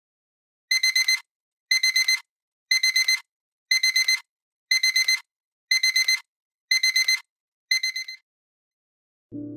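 Electronic alarm clock beeping: groups of four quick high-pitched beeps, about one group a second, eight groups in all, the last one fading away.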